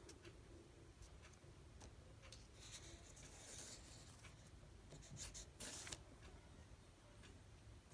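Faint marker strokes scratching across paper, short and irregular, with longer strokes about three seconds and six seconds in.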